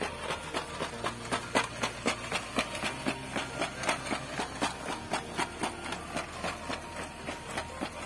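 Background music with a steady beat, about two beats a second, over low sustained notes that change every couple of seconds.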